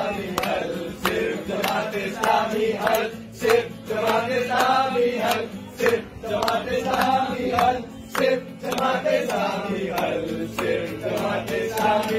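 A group of men singing and chanting together to a strummed acoustic guitar, with hand claps keeping a steady beat about twice a second.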